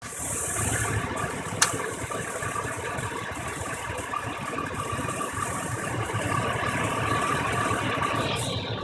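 GM 5.3 L Vortec V8 idling with a misfire caused by loose spark plugs, with one sharp click about one and a half seconds in.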